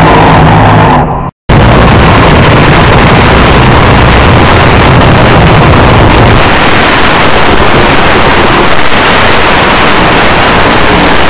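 Fuel altered drag racing engines, so loud that the recording distorts throughout. A car's engine sound cuts off abruptly about a second in; then a car's engine runs hard at the starting line, turning harsher and hissier about halfway through as it does a burnout.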